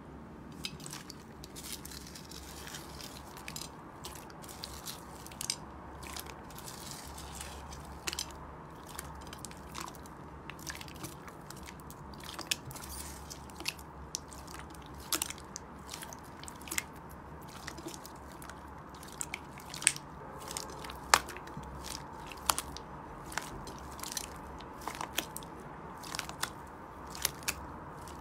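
Slime being squeezed and pressed by hand, giving off a dense, irregular crackle of small clicks and pops, with a few sharper pops now and then.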